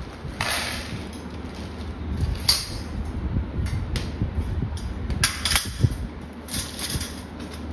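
Stainless steel dish rack parts being handled and fitted together: short scrapes, rustles and clinks of the metal rails and frame, with one sharp click about six seconds in, over a low steady rumble.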